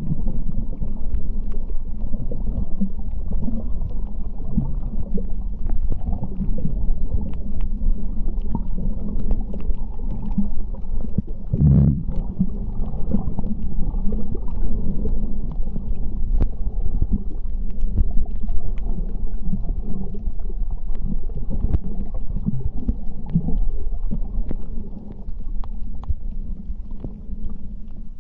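Underwater ambience picked up by a diving camera: a continuous muffled low rumble of water moving against the housing, with faint scattered clicks and one louder gurgling surge about halfway through.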